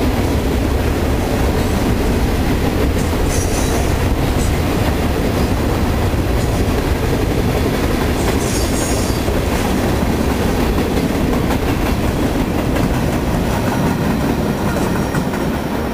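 Freight cars of a long manifest train rolling past: a steady rumble and clatter of steel wheels on the rails, with brief high wheel squeals about three seconds in and again around eight and a half seconds. The last car passes near the end and the sound begins to fade.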